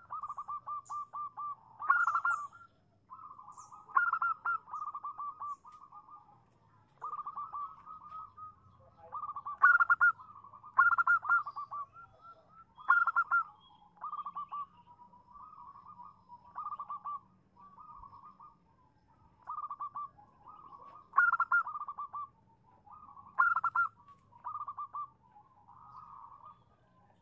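Zebra dove cooing: short rattling bursts of rapid staccato coos, repeated every second or two, some opening with a louder, higher note. It is the female's call that draws a male to answer.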